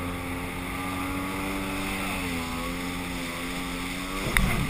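Sea-Doo personal watercraft engine running steadily under way, its tone dipping slightly about two seconds in. A sudden thump comes near the end.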